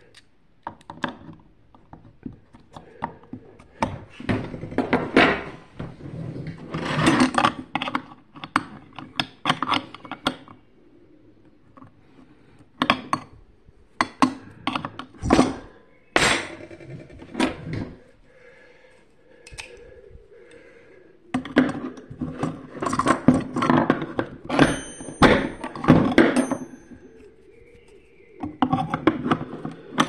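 Metal hand tools clinking, knocking and scraping against a vacuum cleaner motor's metal impeller as its centre nut is worked loose with an adjustable wrench and pliers, a screwdriver jammed in the blades to hold it. Irregular bursts of sharp clicks and knocks, with a few quiet spells between them.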